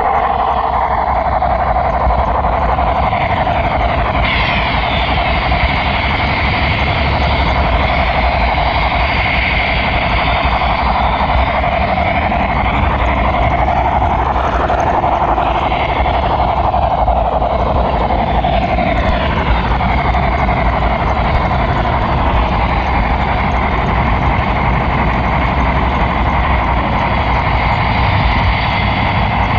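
HO-scale model train wheels rolling steadily along the track, heard through a camera riding on the pushed flatcar, with a continuous rumble and a fine rapid clatter of rail vibration, and some rising and falling whining tones in the middle.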